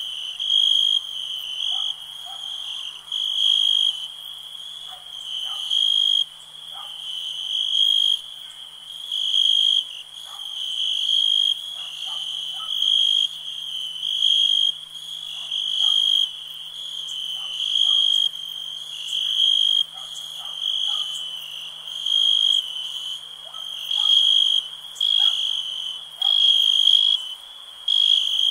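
Night chorus of crickets chirping in steady repeating high pulses, with scattered frog calls lower down.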